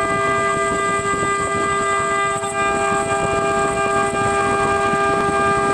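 Mini CNC engraving router's high-speed spindle whining at one steady pitch while its bit engraves brass, with a rough grinding noise underneath.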